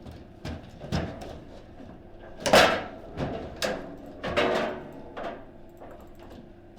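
Table football in play: irregular sharp knocks and clacks of the ball striking the players and the table walls and the rods banging, the loudest knock about two and a half seconds in.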